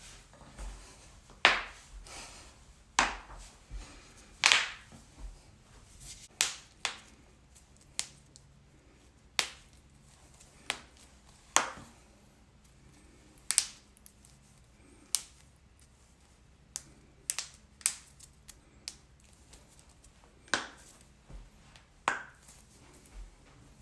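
Joints being cracked: a string of sharp, short pops at irregular intervals, about one a second, some much louder than others.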